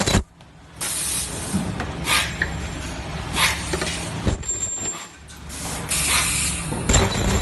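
Car-lamp plastic welding machine running, with a steady low hum and repeated hissing bursts that drop away briefly about half a second in and again around five seconds in.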